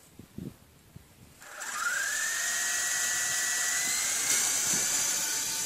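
Toy radio-controlled helicopter's small electric motor spinning up about a second and a half in, to a steady high whine with rotor hiss. The whine rises in pitch at first, then holds level.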